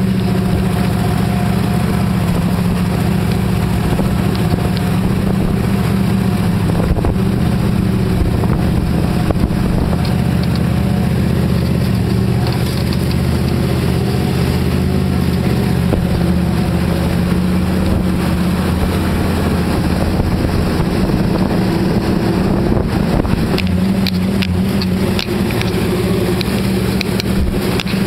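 Jeep engine running steadily at low revs, heard from inside the cab while the Jeep drives off-road.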